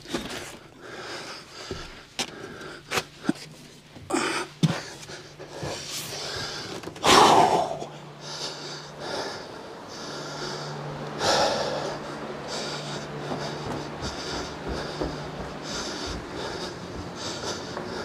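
A man breathing hard and panting while working in a cramped attic, with scattered knocks, bumps and scrapes and one louder scrape about seven seconds in.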